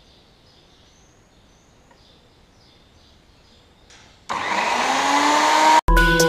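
An electric chain sharpener's grinding motor is switched on after a few quiet seconds and spins up with a rising whine that levels off. Near the end, electronic music with a heavy beat comes in over it.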